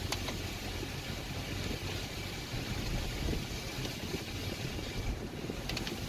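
Steady low outdoor rumble, with a few faint clicks near the start and again near the end.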